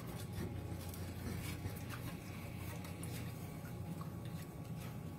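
Wooden chopsticks stirring sugar into warming milk in a small metal saucepan, making light, irregular scrapes and taps against the pan, over a steady low hum.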